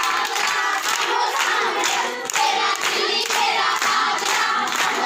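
A group of girls singing a Punjabi folk song together while clapping their hands to a steady beat, the sung and clapped accompaniment of a giddha dance.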